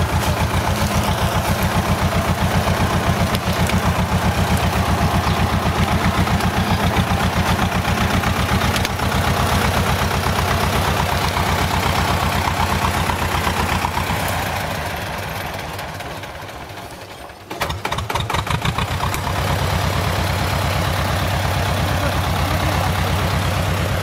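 Two-cylinder air-cooled diesel of a T-16 self-propelled chassis running steadily with a fast, even chugging beat. About fourteen seconds in the engine slows and quietens, dropping away briefly, then picks up again and runs on steadily.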